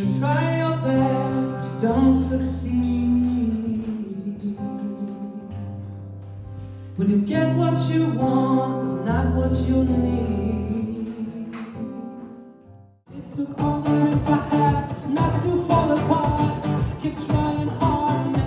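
Music with singing: slow held chords over a steady bass, broken off sharply about thirteen seconds in, after which a busier, more rhythmic passage begins.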